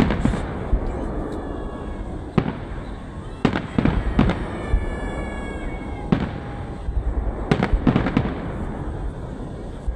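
Fireworks display: a string of sharp bangs from bursting shells, spaced irregularly and a few clustered together, over a steady low rumble of further explosions.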